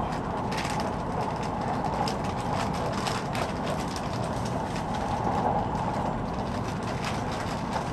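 Tohoku Shinkansen train running, heard from inside the carriage: a steady rumble and rolling noise with scattered light clicks.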